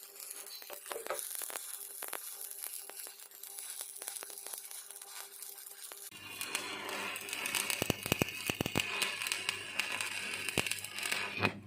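Electric arc welding: an irregular crackling and spitting of the arc over a hiss, growing louder and denser about halfway through.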